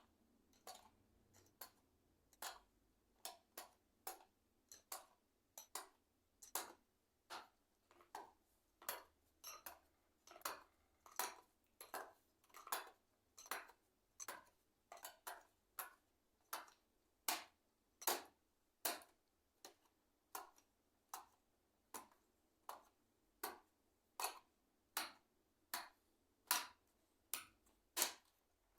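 Old ICL membrane keyboard being taken apart by hand: a steady run of sharp plastic clicks, about one or two a second, some coming in close pairs.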